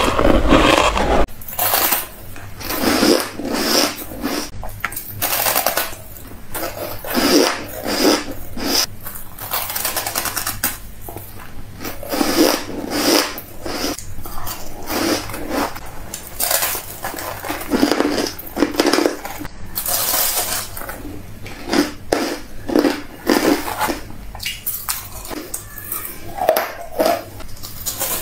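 Crunching of packed freezer frost and shaved ice being bitten off and chewed. The crisp crunches come in clusters every few seconds.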